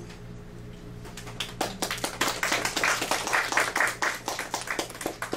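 A small audience clapping: the applause starts about a second and a half in, swells, and thins out near the end.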